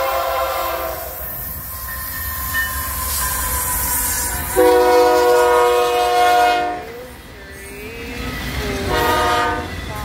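Diesel freight locomotive's multi-note air horn sounding three times: a blast fading away at the start, a loud long blast from about four and a half seconds in, and a shorter blast near the end. Underneath runs the steady rumble of the locomotive and its rolling autorack cars as the train passes.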